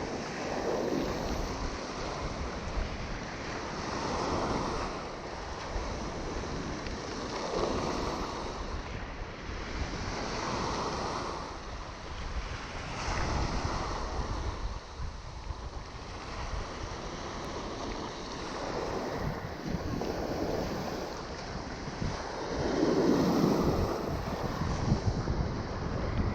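Sea waves breaking on the shore, a swell of surf every few seconds, with wind buffeting the microphone.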